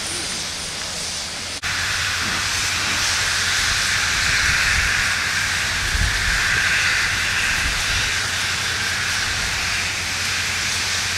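Steady loud hiss of steam escaping from the cylinder drain cocks of a National Railways of Zimbabwe Garratt steam locomotive standing in a station, growing louder after about a second and a half. A few faint low thuds come near the middle.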